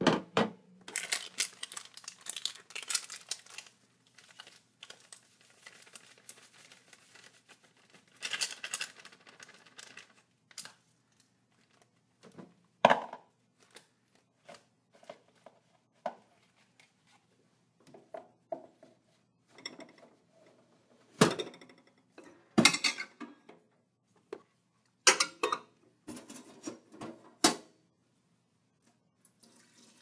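Parts of a commercial coffee brewer being handled as it is readied for brewing: clattering, scraping and rustling near the start and again about eight seconds in, then a scattering of sharp knocks and clicks, the loudest about thirteen seconds in and again a little past twenty-two seconds.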